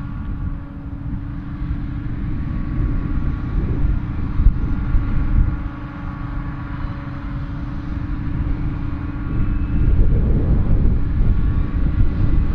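Krone Big X 680 forage harvester chopping maize, its engine and cutterhead running under load with a steady hum, mixed with a tractor pulling a silage trailer alongside. The low rumble grows louder near the end.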